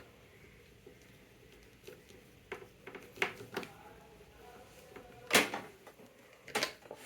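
Scattered plastic clicks and knocks from handling a power strip and its USB plugs and cables, with one louder knock about five seconds in.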